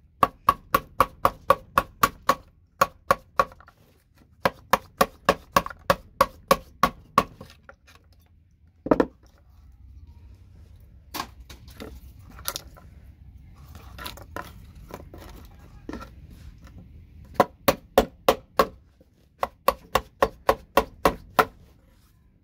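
A hammer tapping a small metal scraper to prise soldered connectors off a patch panel's circuit board. It comes as runs of quick taps, about five a second, each with a short metallic ring. In the middle the taps thin out to a few scattered knocks and scraping.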